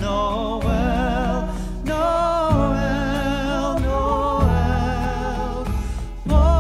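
Background music: a Christmas song with a sung melody over steady chords.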